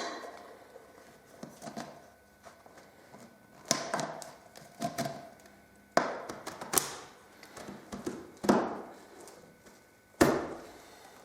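Tin cans knocking and clinking against a cut-down glass jar as they are fitted into it: half a dozen separate sharp knocks spread over several seconds, the loudest about ten seconds in.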